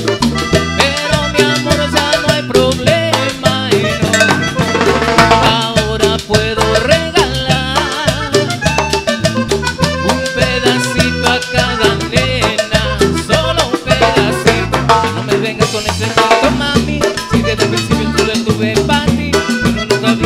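Live band playing Latin dance music, with drum kit, bass and a steady danceable beat, and some singing over it.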